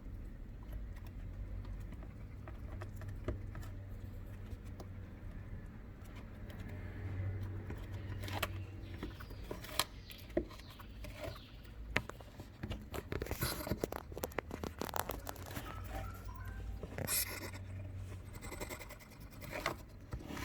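African pygmy hedgehog eating crickets: scattered crunching clicks and scratchy scuffles, sparse at first and coming thick and fast from about halfway through.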